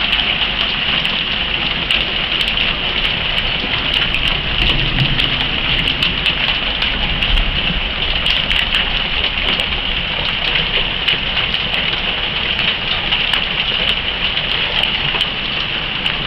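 Hail and rain pelting down during a thunderstorm: a steady, dense patter scattered with many small sharp ticks of pea-size hailstones striking.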